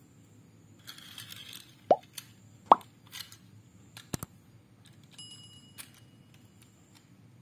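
Subscribe-button animation sound effects: a soft swish, then two short rising pops. A quick double mouse click comes about four seconds in, followed by a faint bell-like ding.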